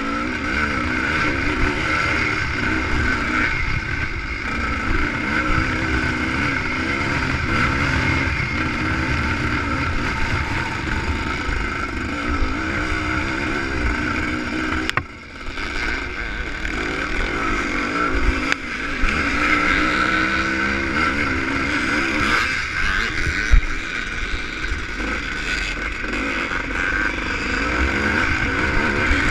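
ČZ two-stroke motocross motorcycle engine heard from the bike itself while racing, its revs rising and falling over and over with throttle and gear changes. About halfway through the engine briefly drops away, then picks up again.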